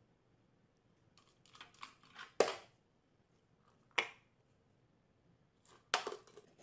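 Light, sharp clicks and taps of hard objects knocking on a glass tabletop: a few small taps about a second in, the loudest click soon after, another click about four seconds in, and a couple more near the end.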